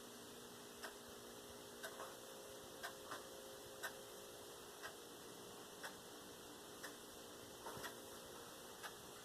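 Faint, steady ticking, one tick each second, with a few extra soft clicks in between, over a faint low hum in a quiet room.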